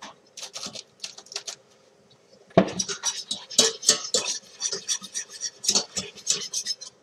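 Wire whisk clicking and scraping against a stainless steel saucepan, stirring flour into hot oil for a roux: a few scattered taps at first, then rapid, continuous whisking from under three seconds in.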